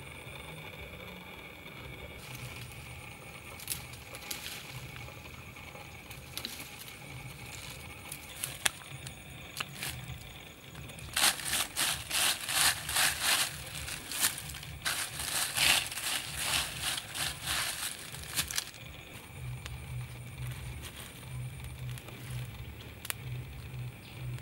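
Dry leaf litter and twigs crunching and rustling as they are scraped up and gathered by hand, loudest in a fast run of crunches in the middle. Steady high-pitched animal calls continue in the background.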